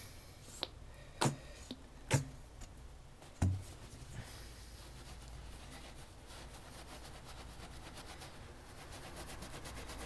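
Four sharp knocks in the first three and a half seconds, then faint steady rubbing of a towel working cleaning paste into a carpet stain.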